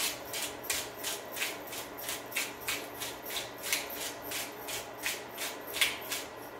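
Pepper mill being twisted back and forth, grinding peppercorns in an even rhythm of about three rasping strokes a second, stopping just before the end.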